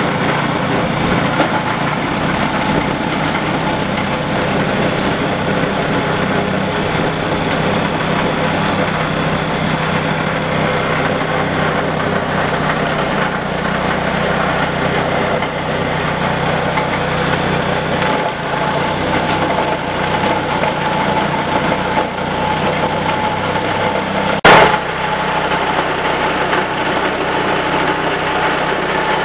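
Small stationary petrol engine running steadily under load, driving a coconut-husk grinder as husks are fed into its hopper and shredded into cocopeat. A single sharp loud crack comes late on.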